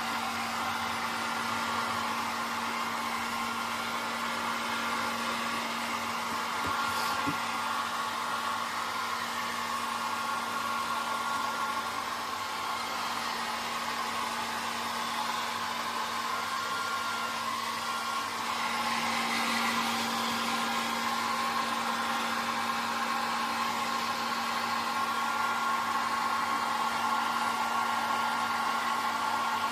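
Hair dryer running steadily, blowing air with a constant hum; it gets a little louder a bit past halfway.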